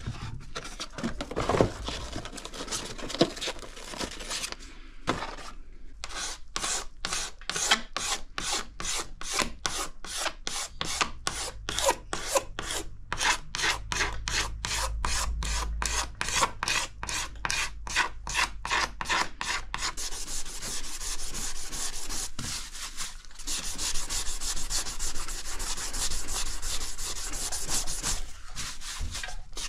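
400-grit sandpaper on a hand pad sanding cured green fine body filler on a car bumper corner. It goes in rhythmic back-and-forth strokes, about three a second, then changes about two-thirds of the way through into faster, more continuous rubbing.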